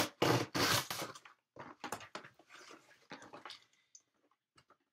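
Box cutter slitting the packing tape on a cardboard box: two or three loud scratchy strokes in the first second, then lighter rustles and taps of the cardboard being handled, dying away after about four seconds.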